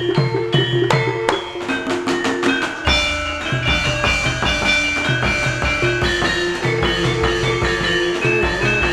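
Music: a melody of ringing pitched notes, with drums and a heavier low beat joining about three seconds in.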